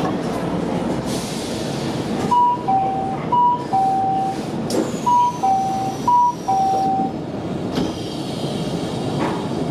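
Two-note electronic chime, high-low-high-low, sounding twice in a row over the steady low hum of a Shintetsu electric train standing at the platform. A sharp knock follows near the end.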